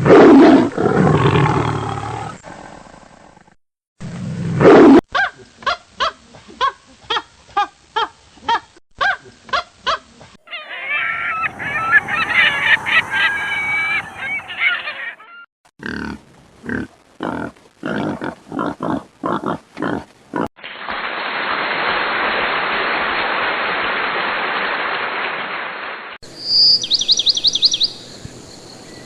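A run of different animal calls edited back to back. First come loud roar-like calls, then a rhythmic series of calls, a dense chorus of overlapping pitched calls and another series of pulses. A steady hiss follows for about five seconds, and high rapid trills close it.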